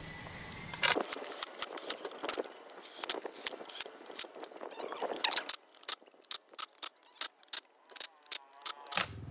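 Sharp metallic clicking of hand tools driving in the screws of a Honda Dash engine's right-side crankcase cover. The clicks are dense and irregular at first, then settle into an even rhythm of about three a second near the end.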